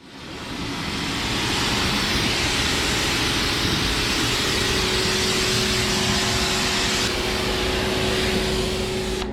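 A machine running steadily: a strong hiss over a low hum with two steady tones.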